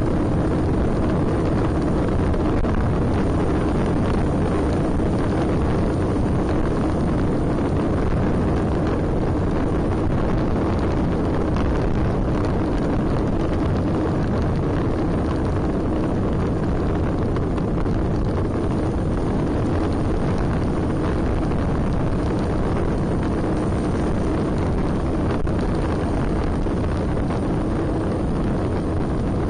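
Steady wind rumble on the microphone of a camera riding on a road bike moving at speed in a group ride, with no breaks.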